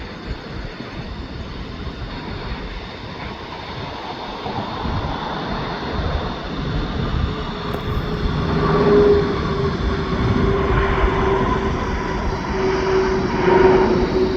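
Jet airliner's engines growing louder as it passes: a broad rushing noise, with a steady whine coming in about halfway through.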